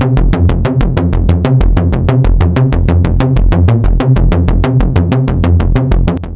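Background music with a fast, even electronic drum beat over heavy bass.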